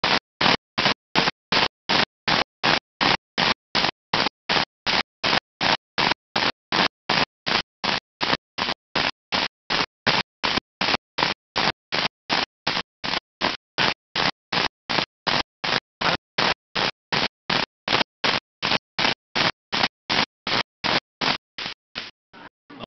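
Stuttering, chopped-up audio: the sound cuts in and out evenly, nearly three times a second, with silence between each short fragment, typical of a live-stream audio glitch. What plays inside the fragments cannot be made out.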